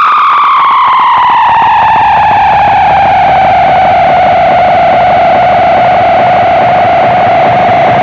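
Electronic tone run through an Artec analog delay pedal, buzzy and gritty with a fast flicker. Its pitch glides steadily down over the first few seconds, then levels off as the delay's knobs are turned.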